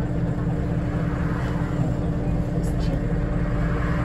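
Scania DC9 diesel engine of a Scania L94UB city bus, heard from inside the passenger cabin, running at a steady pitch as the bus drives.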